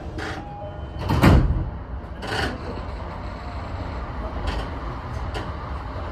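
Sliding doors of a JR East E233 series commuter train closing: a loud thud about a second in, then a shorter burst a second later, over the train's steady hum at a station stop.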